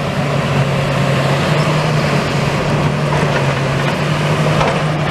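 Heavy diesel machinery on a demolition site running steadily, a constant low engine hum under a wash of mechanical noise.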